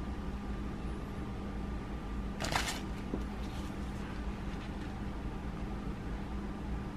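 Steady room tone with a low electrical hum and a faint high tone, broken by one brief rustle about two and a half seconds in.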